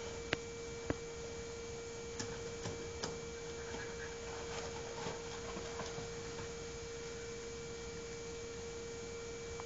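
A steady mid-pitched hum, with light, sharp clicks and taps scattered over it, mostly in the first few seconds.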